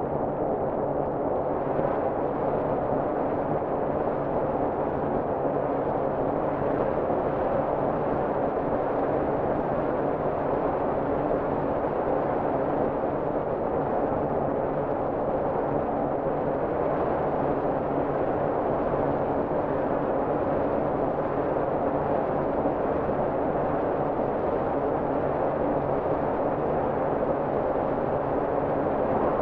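Steady, droning dark ambient background music: several low tones held unchanged throughout.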